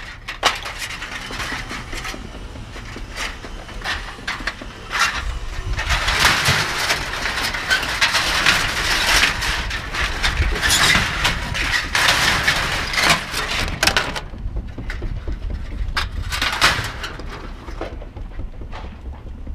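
Scrap metal being handled and loaded: repeated knocks and clanks, with a dense run of clattering in the middle that eases off toward the end.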